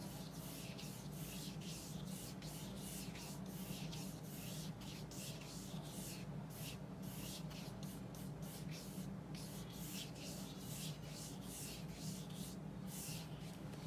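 Paintbrush strokes brushing and scratching across oil paint on paper, in quick back-and-forth sweeps about two a second, smoothing the paint out.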